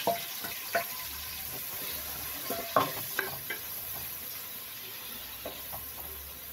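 Sliced onions sizzling in hot oil in a pot, stirred with a ladle that scrapes and knocks against the pot a few times, most sharply a little under three seconds in.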